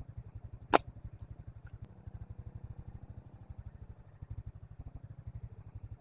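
A small engine idling with a steady, low, even putter, and one sharp snap a little under a second in.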